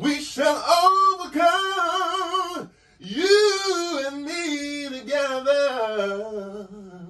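A single singing voice, unaccompanied, recording a vocal take in a small room: two long sung phrases with a wavering vibrato, the second stepping down in pitch and fading out near the end.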